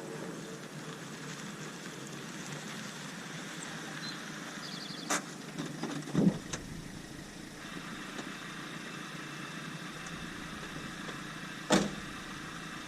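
A small engine idling steadily, broken by three sharp knocks about five, six and twelve seconds in, the last two the loudest.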